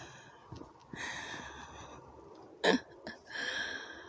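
A man breathing out heavily twice, with one short, sharp cough about two and a half seconds in.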